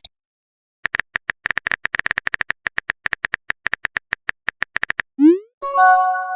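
Phone keyboard typing sound effect: rapid, uneven clicks for about four seconds. Near the end comes a rising whoosh and a short chiming tone, the sound of a message being sent or received.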